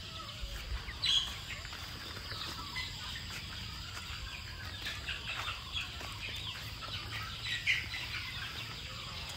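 Chickens clucking and chirping, with many short calls scattered throughout. Louder calls come about a second in and again near the eight-second mark.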